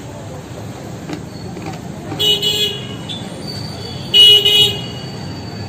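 A vehicle horn honking twice, each toot about half a second long and about two seconds apart, the second louder, over a low steady background of traffic.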